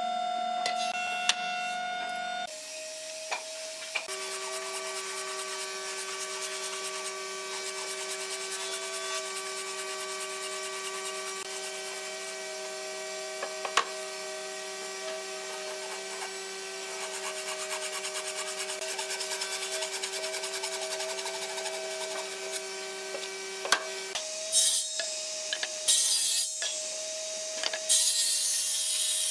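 Woodworking tools working hardwood: a steady rubbing, rasping sound with a few sharp knocks, then several short, louder bursts of cutting near the end.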